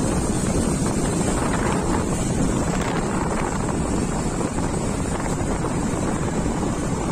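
Steady wind rush buffeting the microphone over road noise from a moving two-wheeler.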